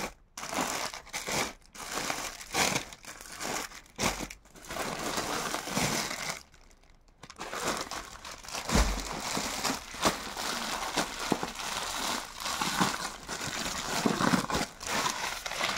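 Clear plastic garment packets crinkling and rustling as a stack is handled and one pack is pulled open, with a soft thud about halfway through.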